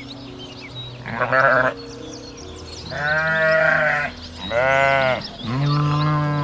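Four bleats from a farm animal, the middle two longer, about a second each.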